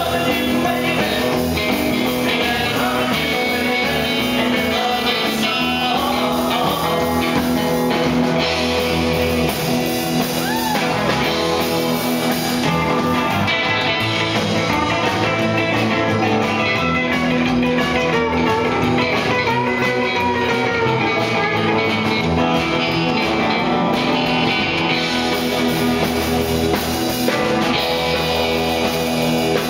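Live rockabilly band playing: electric guitar over upright double bass and drums, with some singing.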